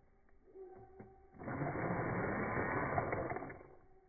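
Slowed-down sound of an RC rock crawler's electric motor and gears whirring as it climbs over rocks. A few faint clicks come first, then a louder stretch of whirring from about a second and a half in until near the end.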